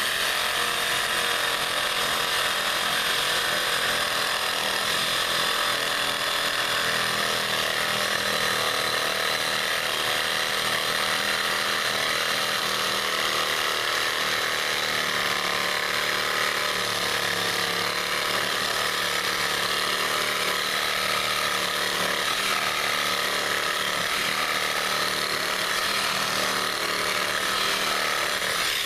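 A machine or power tool running continuously with a steady rattling mechanical noise, holding an even level throughout.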